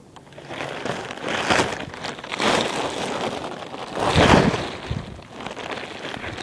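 Gale-force wind gusting and buffeting the microphone, rising in several surges with the strongest blast about four seconds in.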